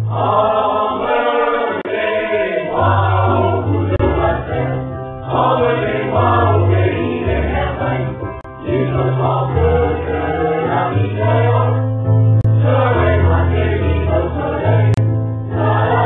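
Background choral music: a choir singing in phrases a few seconds long over sustained low bass notes.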